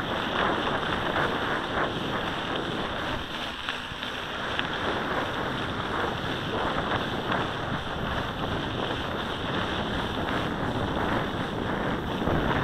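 Wind rushing over the camera's microphone as a mountain bike rolls along a gravel track, with steady tyre noise and small rattles.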